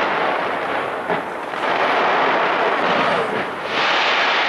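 Fireworks display going off continuously: a dense, steady crackle and rumble of many bursts, with a sharper bang about a second in.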